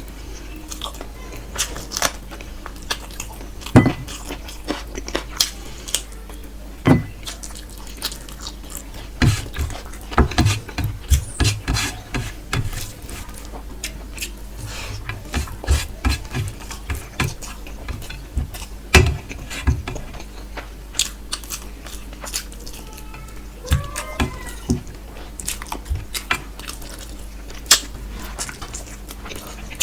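Close-miked chewing and mouth sounds of a person eating chicken curry with rice: irregular wet smacks and clicks, some in quick runs.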